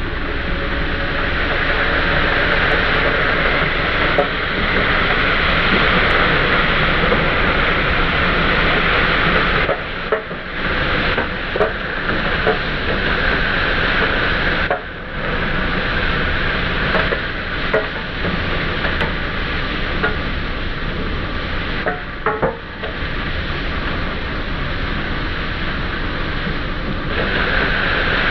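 Compressed-air drilling rig and compressor running: a loud, steady mechanical din with a strong hiss over a low rumble, dipping briefly a few times.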